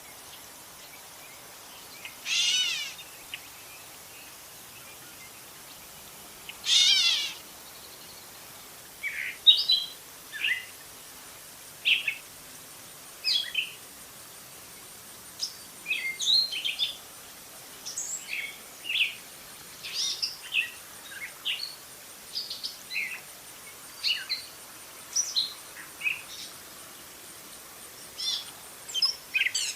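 Gray catbird giving two drawn-out, cat-like mewing calls, then breaking into its song: a long run of short, varied squeaky and chattering phrases with brief pauses between them.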